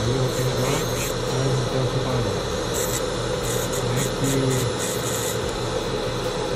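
Dental lab handpiece spinning a thin diamond disc, grinding into the ceramic between the teeth of a zirconia bridge. The motor whine runs steadily, and a gritty grinding hiss comes and goes as the disc touches the porcelain, strongest from about three to five seconds in.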